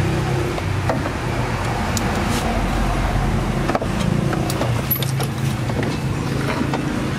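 Refrigerator compressor running with a steady low hum while it is charged with refrigerant, under the noise of passing street traffic, with a few small clicks from handling.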